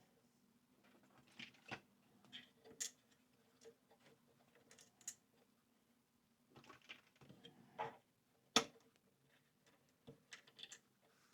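Faint scattered clicks and knocks of small parts being handled and fitted into a PlayStation 5 during reassembly, the loudest about eight and a half seconds in, over a low steady hum.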